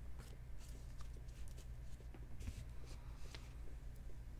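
Faint handling of Topps Chrome Sapphire trading cards: soft sliding and a few light clicks as the cards are moved through the hands, over a low steady hum.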